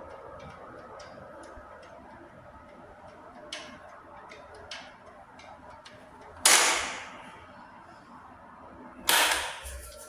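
Sanyo EF-J12KB 12-inch box fan running with a steady whir. A few light clicks, then two much louder sharp knocks with short fading tails, about six and a half seconds in and again near the end.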